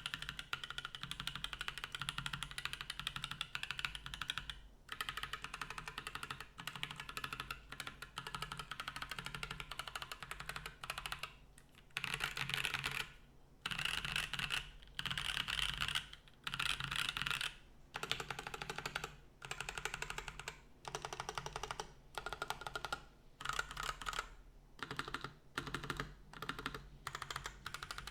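Typing on a Matrix AbelX V2 custom mechanical keyboard with lubed Gazzew U4T tactile switches on an aluminium plate. Keystrokes come in fast steady runs, then break into short bursts with brief pauses in the second half.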